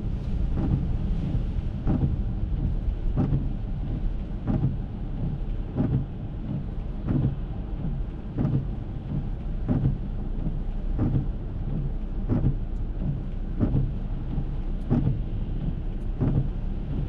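Windshield wipers of an Acura MDX sweeping the rain-covered windshield, heard from inside the cabin, each pass a short knock that comes steadily about every 1.3 seconds, over a constant low rumble of rain and the car.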